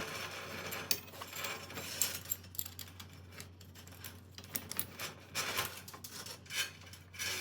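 Light, irregular metallic clicks and scraping from a wrench and socket working the pinch bolts on a garage door torsion-spring cable pulley as they are tightened down.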